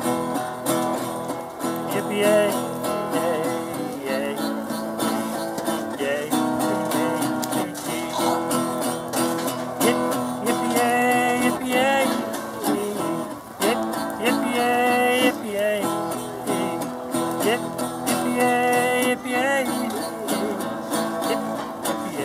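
Acoustic guitar strummed steadily in an instrumental break of a cowboy song. The guitar is a painted, cowboy-stencil flat-top.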